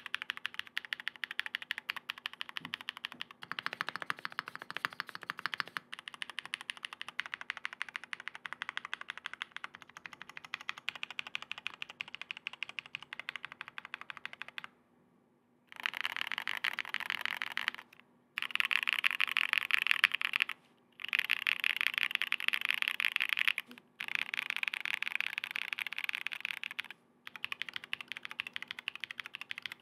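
Continuous typing on a 65% custom mechanical keyboard (Venus65) with factory-lubed KBDFans prototype linear switches on a polycarbonate plate and PBT keycaps: a dense stream of key clacks. It stops briefly several times in the second half, where the typing is louder and denser.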